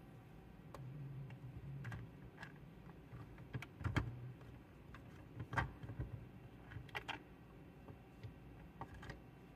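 Light, irregular clicks and taps of small metal parts and hand tools being handled while a short shifter is put together, over a faint low hum.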